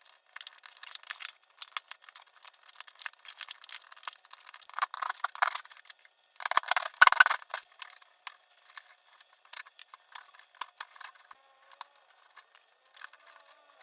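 Quick clicks and rattles of hand tools and switch hardware being handled, with two louder scraping, rustling stretches about five and seven seconds in.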